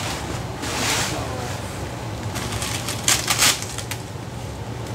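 Bubble wrap being handled and pulled, crinkling and crackling in bursts about a second in and again from about two and a half to three and a half seconds, over a steady low hum.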